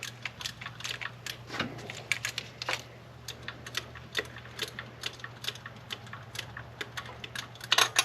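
Ratchet wrench clicking in short, slow strokes on a thermostat housing bolt, irregular sharp clicks several times a second. The ratchet can only swing about one click per stroke in the tight space.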